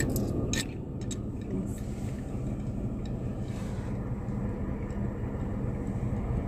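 Car engine idling with a steady low hum; a few light clicks in the first two seconds.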